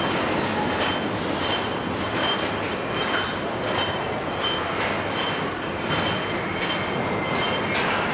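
Car assembly-line din: a steady mechanical noise of conveyors and machinery, broken by frequent sharp metallic clicks and clanks, with faint high steady whines.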